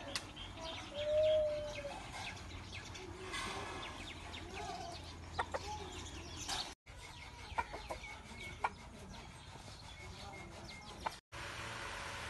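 Rooster clucking, with one short, steady call about a second in as the loudest sound, a few softer calls and scattered light clicks after it. Near the end the sound drops out for an instant and gives way to a steady hiss.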